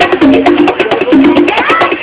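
Live hand-drum music: conga-style drums played in a fast, dense rhythm, with sharp wooden clicks and a sustained melody stepping between a few notes over them.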